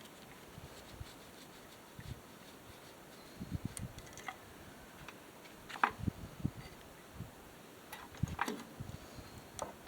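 Scattered light clicks and knocks of hand work on a lawn mower, parts and tools being handled, with quiet stretches between them.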